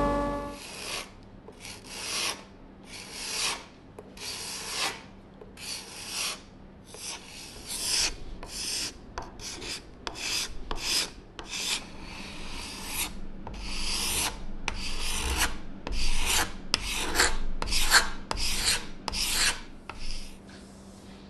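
Steel card scraper drawn along a turned wooden stool leg in repeated dry scraping strokes, at first about one a second, then nearer two a second.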